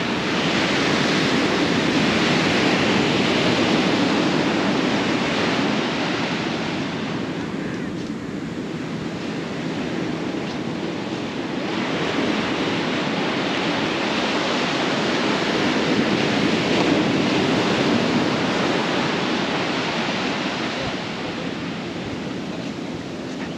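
Sea surf breaking on a beach, a steady wash of noise that swells and eases twice in long surges, with some wind on the microphone.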